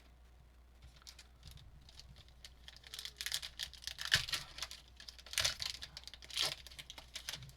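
A foil trading-card pack wrapper being torn open and crinkled by hand, in several short, irregular rustling bursts.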